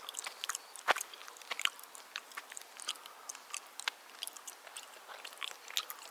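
Close-up chewing of raw chicken: irregular wet clicks and smacks of the mouth, with one sharper click about a second in.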